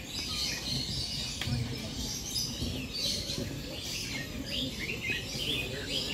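Many songbirds in a mixed aviary chirping and calling at once: a steady chorus of short, overlapping high chirps.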